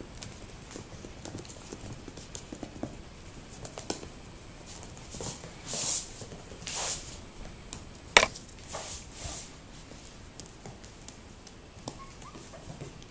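Toy poodle puppies' paws and claws pattering and tapping on the floor and playpen, with louder close rustling about six and seven seconds in and one sharp click just after eight seconds.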